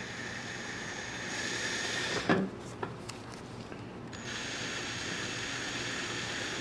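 Cordless drill running in reverse, a hole saw cutting slowly into a carpeted door panel: a steady motor whine that stops a little over two seconds in, with two knocks, then starts again about four seconds in.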